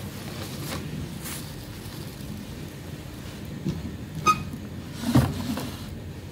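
Hands rummaging through a drawer of plastic bags and cloth, with light rustling, a sharp click with a brief ring about four seconds in and a heavier knock about a second later. A steady low hum runs underneath.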